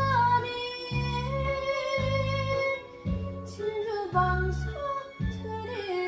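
Background music: a melody that slides between held notes over a bass pulsing about once a second.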